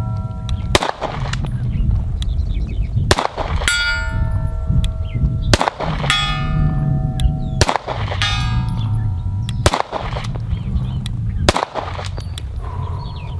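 Atlas Gunworks Erebus compensated 2011 pistol fired six times, slow and deliberate, about two seconds apart. A moment after several of the shots, a long-range steel plate rings back with a bell-like ring that marks a hit.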